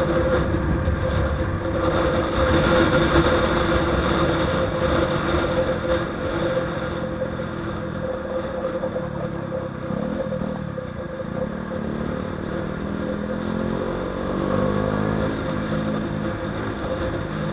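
KTM Duke 125's single-cylinder four-stroke engine running hard at speed, mixed with wind noise on the microphone. It eases off in the middle, and its pitch rises again in the last few seconds as the bike accelerates.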